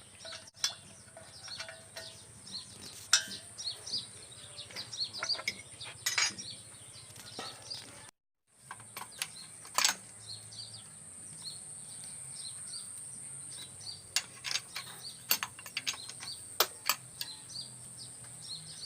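Hand tools clinking and knocking on metal engine parts as a single-cylinder diesel engine is taken apart, in short irregular clicks. Birds chirp and a steady high-pitched insect drone runs behind.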